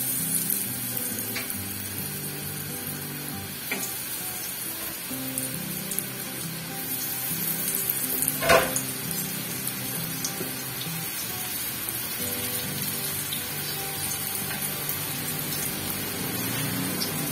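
Cauliflower seekh kebabs shallow-frying in a little oil on a flat iron tawa: a steady sizzle. A single sharp knock about eight and a half seconds in, with a few small clicks before it.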